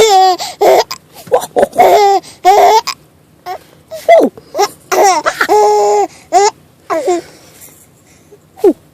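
A baby's hiccupy laugh: short high-pitched bursts of laughter in several runs, with a brief pause about three seconds in and a longer one near the end.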